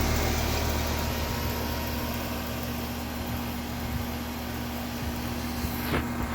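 Carrier central air conditioner's outdoor unit running: a steady electrical hum from the compressor under the rushing of the condenser fan. There is a short bump near the end.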